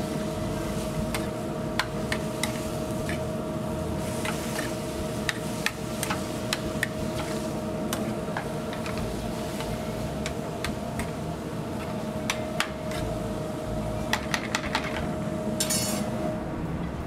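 A metal spoon clinking and scraping against an aluminium sauté pan in irregular taps as ground chicken is stirred and tossed, over a steady kitchen hum. A short hiss comes near the end.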